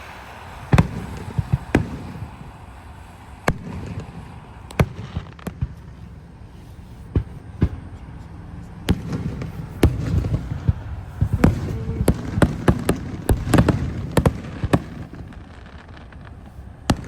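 Fireworks going off: many irregular sharp bangs over steady low background noise, coming thicker from about nine seconds in.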